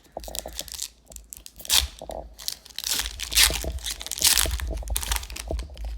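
Plastic and foil trading-card packaging being torn open and crinkled by hand, in a run of uneven rustles and rips, the loudest a few seconds in.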